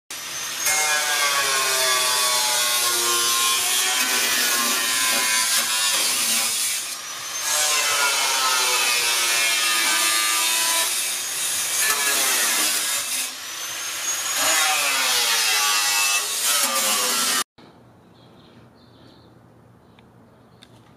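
Angle grinder with a cut-off disc cutting through the sheet-steel rear wheel arch of a BMW E46, its whine sagging and recovering in pitch as the disc bites, easing off briefly twice. Near the end it stops abruptly, leaving a faint background hum.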